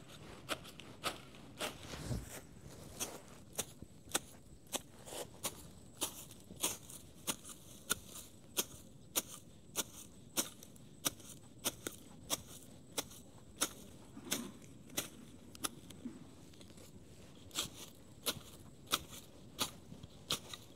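Grass stems being cut by hand with a blade close to the ground: a crisp snip about once or twice a second, unevenly spaced.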